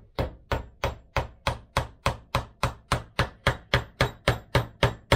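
Steady hammer taps, about eighteen at an even three to four a second, driving a Triumph water pump's shaft down into its impeller. Each tap carries a faint metallic ring, and the taps stop near the end.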